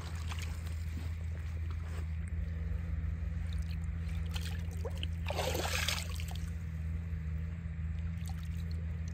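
Shallow lake water sloshing and trickling around a hand as a large common carp is released, with one short splash about halfway through, over a steady low rumble.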